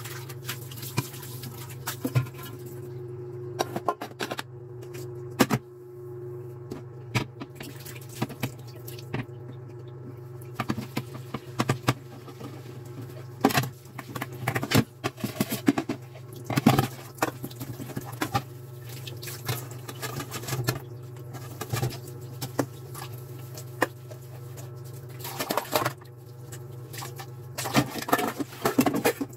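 Dishes being washed by hand under a thin stream from the tap in a stainless steel sink: scrubbing, with scattered clinks and knocks of pans and dishes, busier about halfway through and again near the end. A steady low hum runs underneath.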